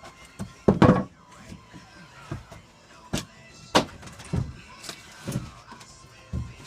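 Scattered wooden knocks and thumps, the loudest cluster about a second in, as a plywood security door is shifted and propped up with a 2x4.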